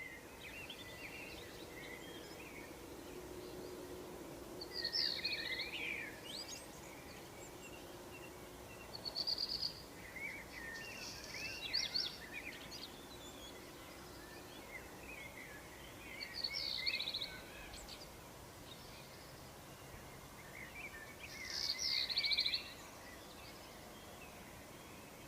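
Morning outdoor ambience: several songbirds singing and chirping in short bursts every few seconds, over a steady low background hum.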